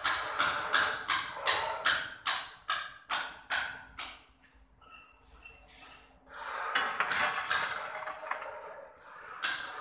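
A quick run of sharp, ringing knocks on a hard surface, about three a second, for the first few seconds. Then comes a rubbing scrape, and a single sharp knock near the end.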